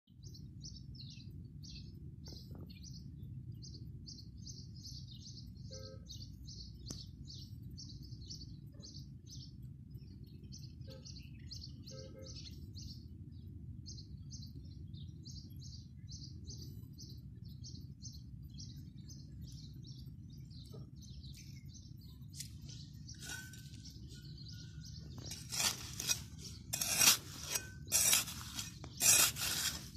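A small bird peeping, high short calls repeated about twice a second over a steady low rumble, fading out after about two-thirds of the way through. Near the end a small metal hand trowel scrapes and digs into dry, stony soil in loud strokes about one a second.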